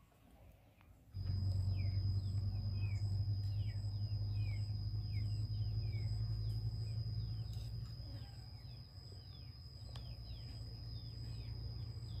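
Birds chirping, many short falling calls one after another, over a steady low hum and a thin steady high tone that both come in about a second in.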